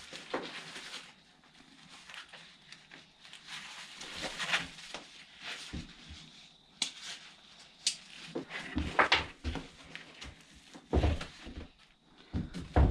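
Handling noise from a plastic backpack sprayer being turned over in the hands: rubbing and rustling of the straps and padding, scattered clicks, and a few soft thumps in the second half.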